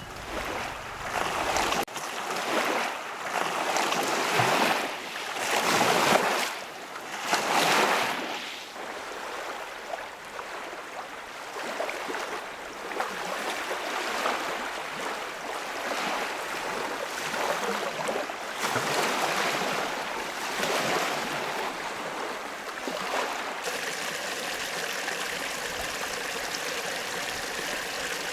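Small waves washing onto a lakeshore, the noise swelling and falling every second or two at first, then settling into a steadier wash.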